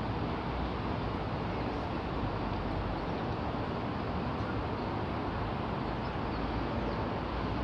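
Steady road-traffic noise from the elevated motorway overhead: an even, unbroken rumble and hiss.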